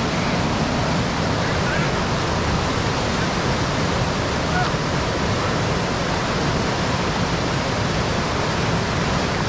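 Whitewater rapid rushing steadily: the continuous roar of river water pouring over rocks and through standing waves.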